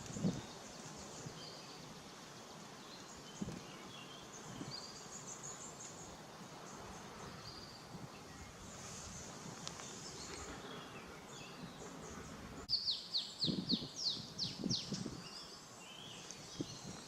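Small songbirds chirping over a steady outdoor hiss, with a fast run of about eight downward-sweeping notes about thirteen seconds in. A few soft low thumps stand out among the calls.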